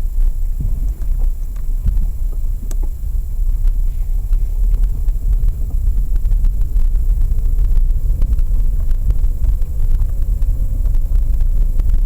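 A Lada Vesta SW driving, heard as a steady low rumble of road and engine, with scattered faint light knocks and clicks.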